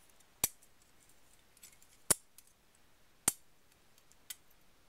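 Four sharp clicks, roughly a second apart with a few fainter ticks between, from hand work on a small part wound with fine red wire.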